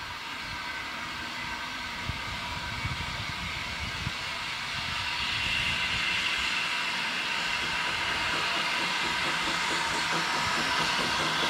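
Avonside 0-4-0 saddle tank steam locomotive No. 1340 'Trojan' approaching slowly. A steady hiss of steam grows louder from about halfway through as the engine draws near, with a few light knocks early on.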